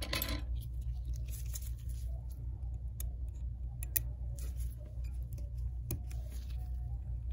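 Small, sharp clicks and scratches of metal tweezers against the iPhone XS's internal metal bracket as it is worked loose from over the connectors, a few scattered ticks, over a steady low hum.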